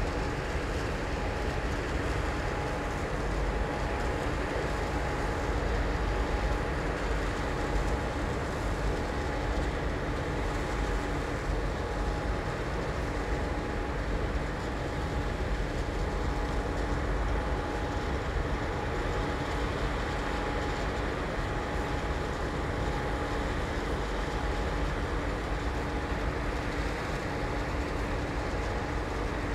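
Steady industrial machinery noise in a cement grinding plant: a continuous low rumble with two steady hum tones.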